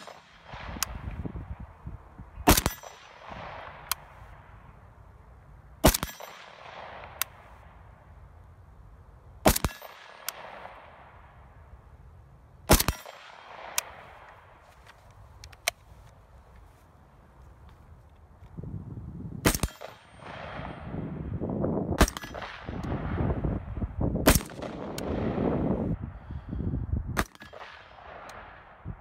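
Rifle shots fired one at a time: an AK-74 in 5.45×39mm, then an AR-15. There are eight shots, mostly about three seconds apart, each followed by a long rolling echo, with lighter sharp clinks between some of them.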